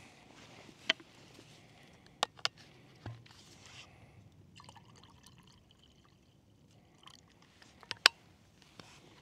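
Liquid trickling for a few seconds in the middle, between several sharp clicks and knocks of handled camp gear; the loudest clicks come about a second in, twice near two and a half seconds, and once near the end.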